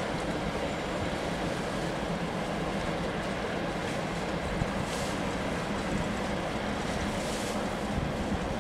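Class 08 diesel shunter's English Electric six-cylinder engine running with a steady low rumble, heard across the tracks amid general station noise.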